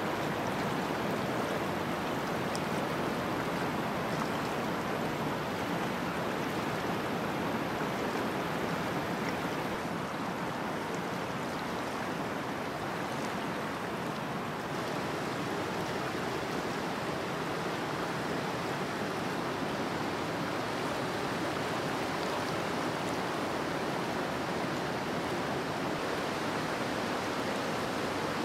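River water rushing steadily over rapids, an even, unbroken rush.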